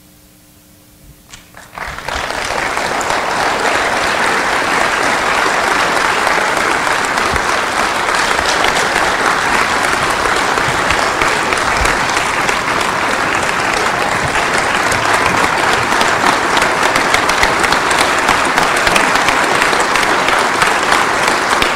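Large audience applauding at length, a dense, steady clapping that starts about two seconds in after a short hush, welcoming someone being introduced.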